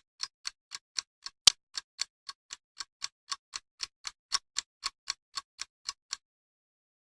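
Ticking sound effect, like a clock or timer: sharp, even ticks about four a second, one louder tick about a second and a half in, stopping abruptly about six seconds in.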